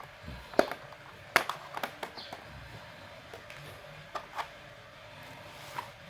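Light, irregular clicks and taps on a laptop, about seven in all, the loudest two in the first two seconds.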